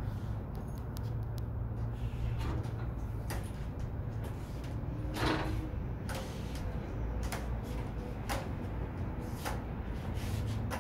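Background room noise: a steady low hum with scattered light clicks and knocks, the loudest about five seconds in.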